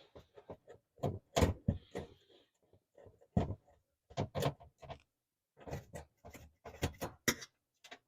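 Irregular metal clicks, knocks and short scrapes from hand work on an oven's lower bake element and its mounting plate, as screws are backed out with a hand screwdriver and the element is worked loose.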